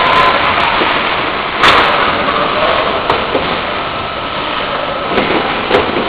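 Automatic oil filling and packaging line running, a steady mechanical din. A short, sharp burst comes about a second and a half in, and a few clicks follow later.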